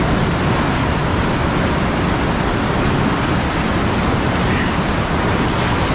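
Loud, steady rush of whitewater churning through a pour-over rapid at close range, pouring over a log and a kayak pinned against it.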